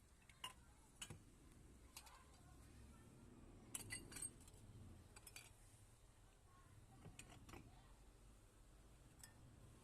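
Faint room tone with scattered light clicks and clinks of small hard objects, about eight in all, with a small cluster of them about four seconds in.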